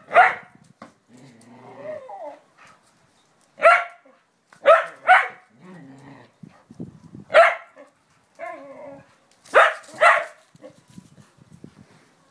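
Dog barking excitedly during play, about seven sharp barks, some coming in quick pairs, with quieter lower vocal sounds in between.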